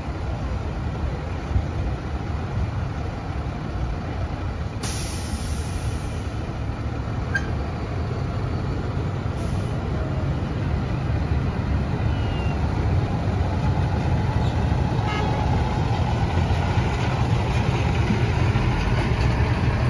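Diesel engines of converted school buses (chicken buses) rumbling as they pull away and drive past, growing louder toward the end. There is a brief hiss about five seconds in.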